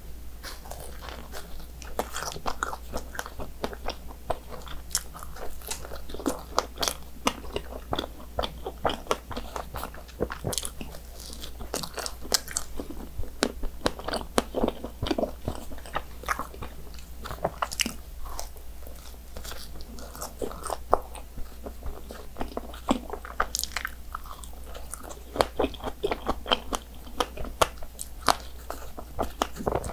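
Close-miked eating: biting into and chewing a soft doughnut filled with chocolate cream and fresh strawberries. Many short, sharp mouth clicks run through the chewing.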